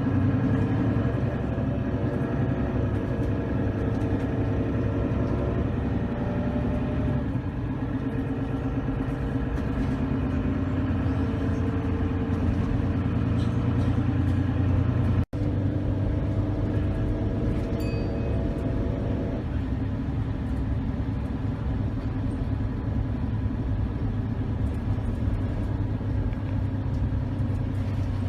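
Diesel bus engine running under way, steady, its note shifting about a quarter of the way in and again past the middle as the bus changes gear; a momentary dropout just past halfway.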